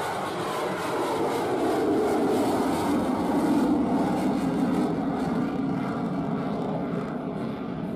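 F/A-18 fighter jet's twin engines roaring in afterburner during a takeoff climb. The roar swells to its loudest a few seconds in, and its pitch falls steadily as the jet pulls up and away overhead.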